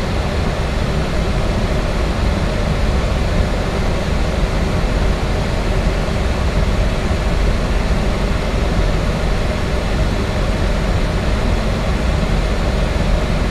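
Steady flight-deck noise of a Boeing 737-800 in flight on approach: an even rush of air over a low hum, holding the same level throughout.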